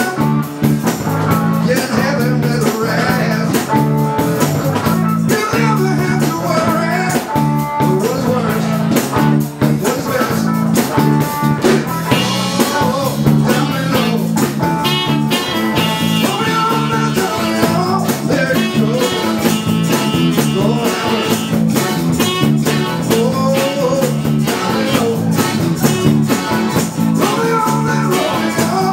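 Live band playing a blues-rock number: electric guitar over a repeating bass line and a steady drum beat.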